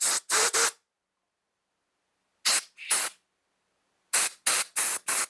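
Short blasts of compressed air from a blow gun hissing through the small jets and passages of a two-stroke carburetor as it is cleaned. There are three quick blasts at the start, two more about two and a half seconds in, and a rapid run of four or five near the end.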